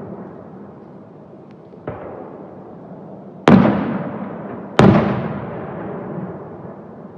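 Aerial firework shells bursting: a lighter bang about two seconds in, then two loud booms a little over a second apart, each trailing off in a long echoing rumble.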